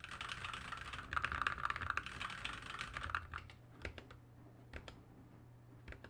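Fast typing on a ZSA Moonlander split mechanical keyboard with Kailh Box Black switches, the near half unlubed and the far half lubed: a dense run of keystrokes for about three and a half seconds, then a few scattered key presses. A low boom from the desk underneath sounds along with the keystrokes.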